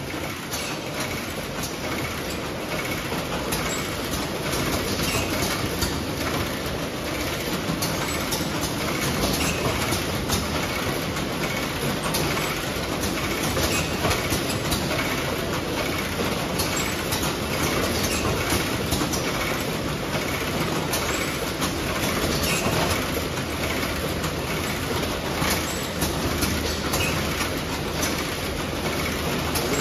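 Egg-tray stacker and its chain conveyor running, stacking 30-egg trays: a steady mechanical clatter with many sharp clicks and clacks.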